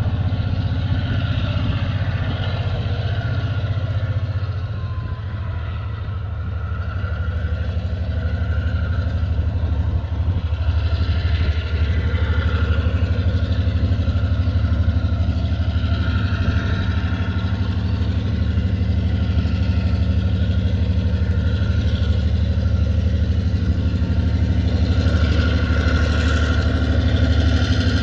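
Diesel locomotives of a TasRail freight train, a DQ class leading TR-class units, running with a steady low engine drone as the train approaches, growing louder toward the end.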